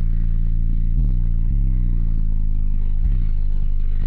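Four DD Audio 3500-series 15-inch subwoofers in a sixth-order blowthrough box playing bass-heavy music loud, with deep bass notes that slide down in pitch.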